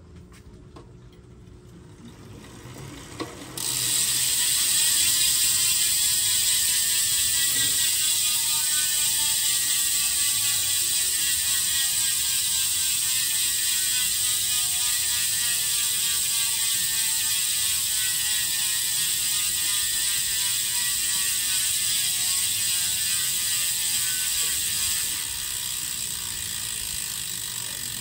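Elite RD07 rear hub freewheel buzzing as the spun rear wheel coasts: a loud, rapid ratchet clicking that starts suddenly after about three seconds of near quiet and slowly drops in pitch as the wheel slows.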